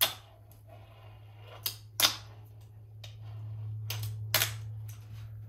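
Fingerboard kickflips: sharp clacks of the small wooden deck popping and landing on a hard surface, a second or two apart, with a faint rolling of the wheels between them. A low steady hum sits underneath.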